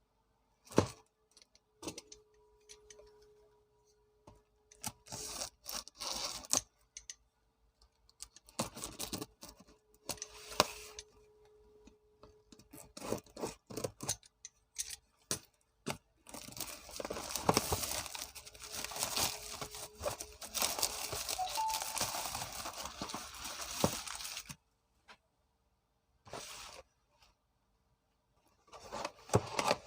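Snack packaging being handled and opened: scattered scrapes and rustles, then about eight seconds of continuous tearing and crinkling just past the middle.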